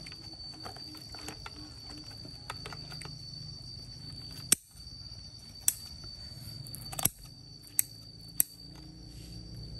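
Five sharp clicks, a second or so apart, in the second half, over a steady faint high whine and a low hum.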